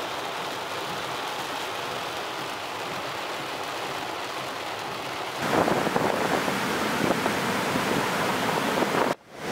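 Heavy rain falling on a car's windshield and roof, heard from inside the cabin as a steady hiss. About five seconds in it gives way to louder, gusting wind on the microphone over breaking surf.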